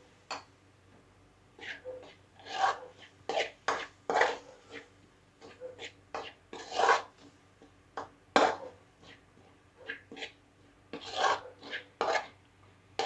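A metal spoon scrapes and stirs frying onions and spice powders around a metal kadai in a run of irregular rasping strokes with short gaps between them. The onion masala is being cooked with the powders.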